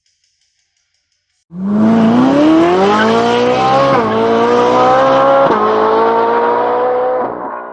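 Car engine accelerating hard, its pitch climbing, with two drops at gear changes, then holding and fading out near the end.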